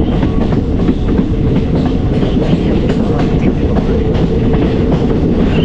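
Passenger train running along the track: a loud, steady rumble of wheels on rail with scattered clacks over the rail joints.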